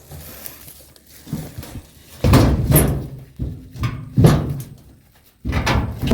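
An old door being pushed shut, with several scraping knocks and bumps. The loudest come about two and four seconds in, and another run comes near the end.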